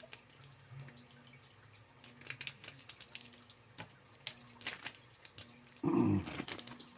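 Scattered light clicks and ticks of fishing-lure packaging being handled, with a short hum-like vocal sound about six seconds in.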